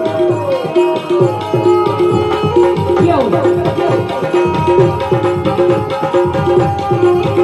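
Devotional music with tabla playing a fast, busy rhythm over harmonium, with a held note pulsing evenly through it; no singing.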